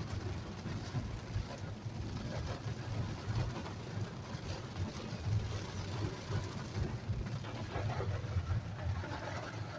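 Car driving through heavy rain, heard from inside the cabin: a steady low engine and road rumble under an even hiss of rain and wet tyres.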